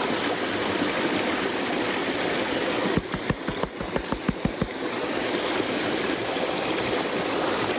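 Steady rush of a creek, with a quick run of about ten low thuds and sloshes starting some three seconds in and lasting under two seconds, as water swirls in a plastic gold pan being shaken.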